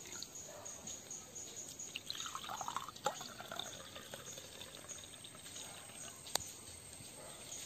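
Homemade rambutan wine poured from a bottle into a wine glass, a faint splashing trickle as the glass fills, strongest a couple of seconds in. Two short light clicks, one about three seconds in and one near the end.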